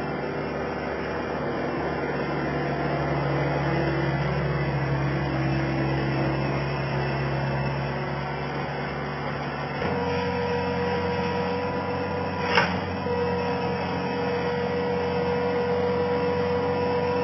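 Skid steer loader's engine running steadily under work. The note changes about ten seconds in to a steadier, higher hum, and there is one sharp metallic clank near the end.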